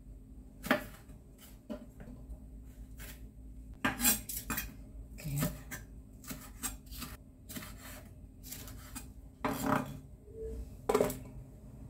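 Chef's knife slicing red chillies on a bamboo cutting board: irregular knocks of the blade against the wood, some coming in quick runs.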